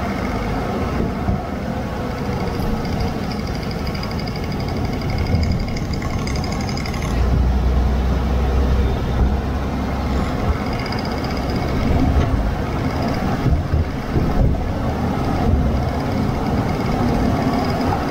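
Underbody road and driveline noise from a Land Rover Discovery 3 on the move: tyre and road rumble with the drive shaft spinning overhead, the low rumble growing louder from about seven to ten seconds in. It is a test drive for drive-line shudder, with the shaft no longer jerking after its center bearing was strapped down.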